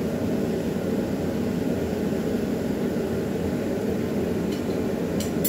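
Forge running with a steady, even rushing noise while the work reheats in it. A few light metallic clicks come near the end.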